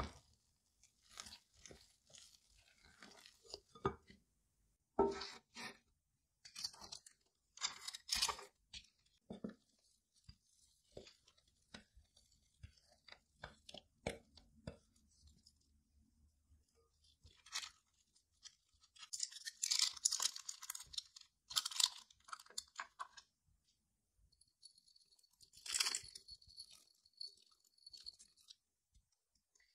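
Wooden spoon and spatula working a thick, sticky gluten-free bread dough in a glass bowl, with wet squelches and scrapes against the glass, then dough scraped out into a loaf tin. Near the end, sunflower seeds are scattered over the loaf from a small glass in a light, fine rattle.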